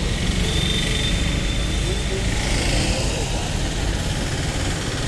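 Busy road traffic: a steady low rumble of passing cars, auto-rickshaws and motorbikes, with faint voices of people close by and a thin high whine in the first couple of seconds.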